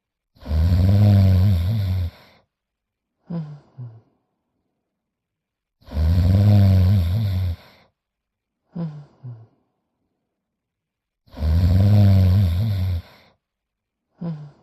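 Cartoon bloodhound snoring. Each snore is a long, rasping sound of about two seconds followed by two short puffs, and the cycle repeats three times, about every five and a half seconds.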